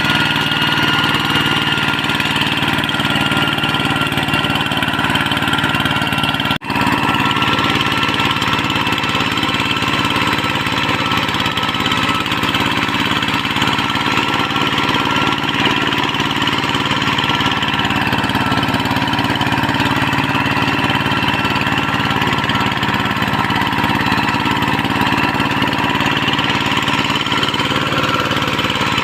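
Kubota tractor's diesel engine running steadily while working a rice paddy, with a brief break in the sound about six and a half seconds in.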